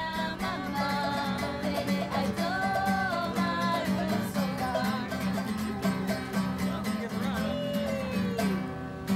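Acoustic guitar and ukulele strummed, with singing over them.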